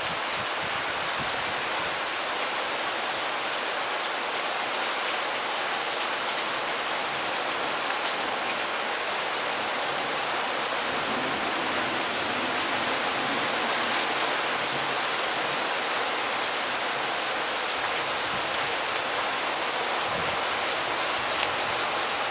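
Heavy rain falling steadily, an even hiss of the downpour with scattered sharp taps of single drops landing close by.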